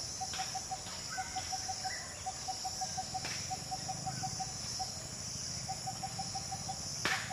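Outdoor insect chorus: a steady high, shrill hum, with quick runs of short low chirps repeating about six times a second and a few faint whistled notes. A few sharp clicks cut through, the loudest near the end.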